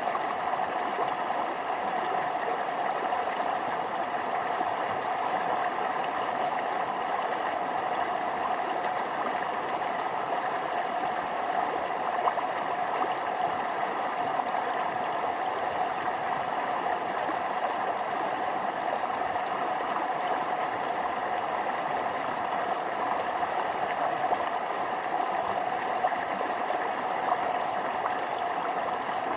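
Forest stream running over small waterfalls: a steady rush and burble of water, with small splashes here and there.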